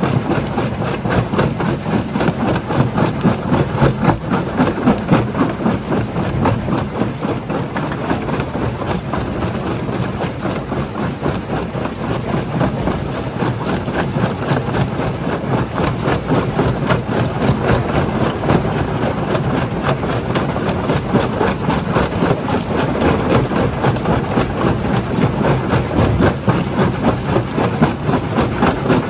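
Primary jaw crusher running, a steady heavy machinery drone overlaid with dense, rapid knocking and cracking of rock being crushed.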